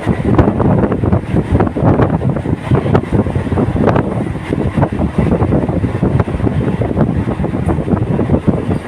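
Local passenger train running at speed, its wheels clattering over the rails in a dense run of irregular knocks, with wind buffeting the microphone.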